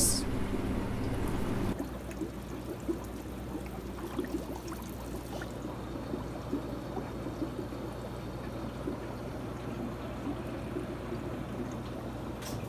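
Water trickling and bubbling in an aquarium run on air-driven sponge filters, over a steady low hum.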